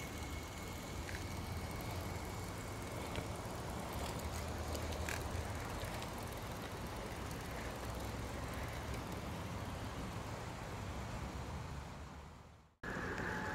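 Steady outdoor background noise: a low rumble with an even hiss and a few faint clicks, fading out near the end.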